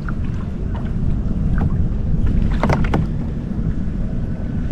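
Wind rumbling on the microphone and water lapping against a kayak hull, with a few brief sharp noises about two and a half to three seconds in.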